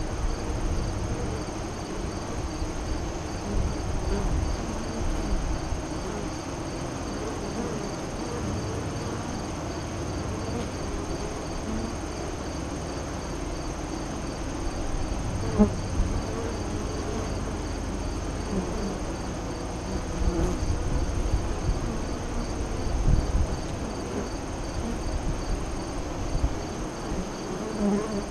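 Honey bees buzzing at a hive entrance, with single bees flaring up louder as they fly close past the microphone. A steady, evenly pulsing high insect trill runs behind them.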